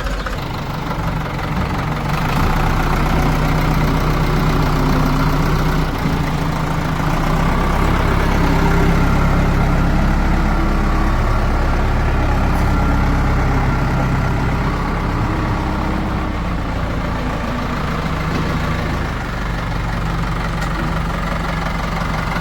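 Heavy diesel engine of a backhoe loader or tractor running steadily. It gets louder for several seconds at a stretch as it works, then eases back.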